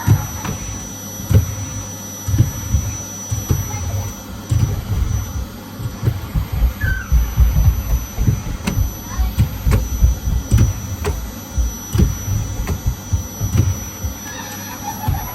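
Irregular low thuds and bumps, like handling and knocking about, with a few faint clicks.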